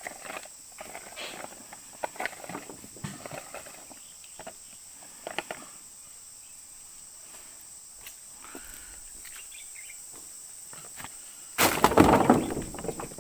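Steady high-pitched insect chorus, with scattered clicks and rustling in the first half and a loud rustling burst lasting about a second and a half near the end.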